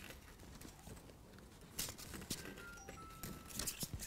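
A bundle of thin wire strands being twisted and bent by hand, with faint rustling and light scattered clicks as the strands rub and tap together.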